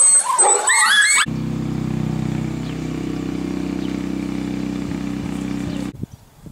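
Golden retriever puppies whimpering and yelping with high cries that rise and fall, for about the first second. Then it switches abruptly to a steady low engine drone, which cuts off suddenly near the end.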